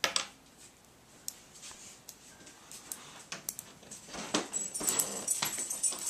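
Small magnetic balls clicking as they snap together and are pulled apart: scattered single clicks at first, then a denser run of clicking over the last two seconds.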